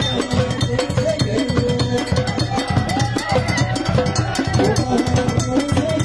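Ahwash music: hand-held frame drums and a large skin drum beaten with two wooden sticks play a fast, dense rhythm, with a group of voices singing over it.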